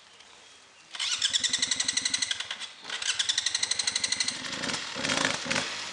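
Off-road enduro motorcycle engine close by, coming in suddenly about a second in with a rapid, even chugging beat. It drops briefly just before three seconds, picks up again, and is revved harder near the end.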